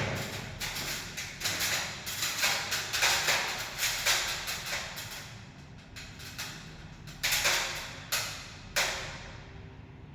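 A run of irregular knocks and clatter from hard objects being handled. It thins out, and three sharper single knocks come near the end, a little under a second apart.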